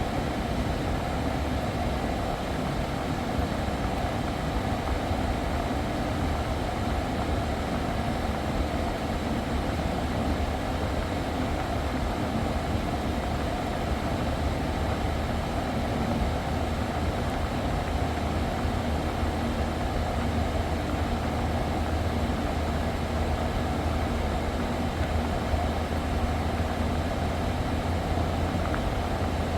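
Kia Carnival's engine idling steadily while its air-conditioning refrigerant is being recharged, a low even hum with no changes.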